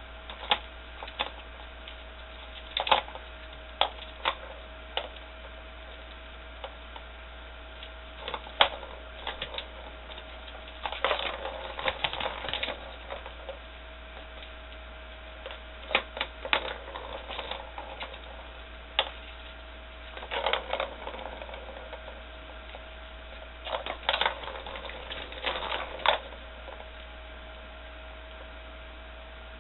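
Kittens batting and scrambling on a round hard-plastic cat toy: irregular plastic clicks and clattering, coming in scattered clusters, over a faint steady hum.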